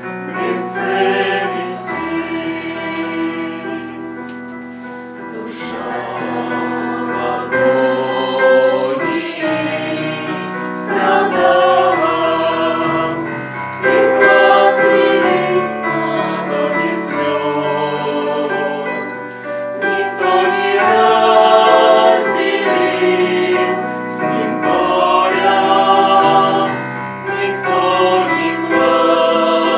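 A choir singing a Christian song, with sustained held notes.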